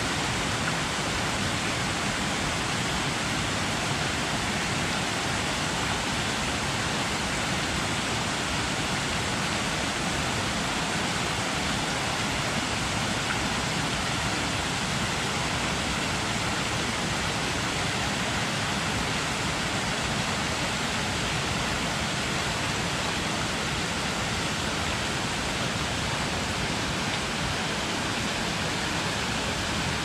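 Leuk waterfall: falling water with a steady, even rush that does not change.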